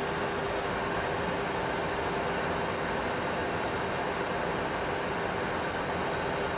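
Steady cockpit background noise in a Boeing 737 Classic full flight simulator during a climb: an even rushing hiss with a constant hum underneath.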